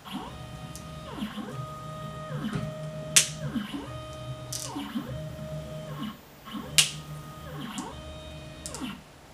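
MPCNC (Mostly Printed CNC) stepper motors driving the gantry through a series of quick back-and-forth moves: each move is a whine that rises in pitch as the motors accelerate, holds steady, then falls as they slow to a stop. Two sharp clicks, the loudest sounds, come about three and seven seconds in.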